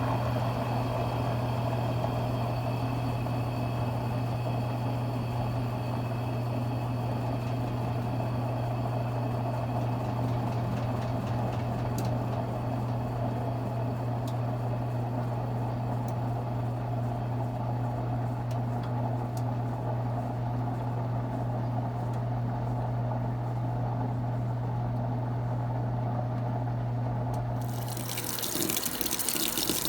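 Consul Cargo 8 kg top-loading washing machine running with a steady low hum and the sound of moving water. Near the end the hum stops and water starts rushing into the tub as it fills.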